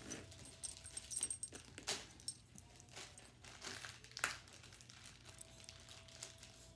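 Plastic and cardboard packaging of a mystery-mini blind box crinkling and crackling as it is handled and opened, with irregular sharp snaps.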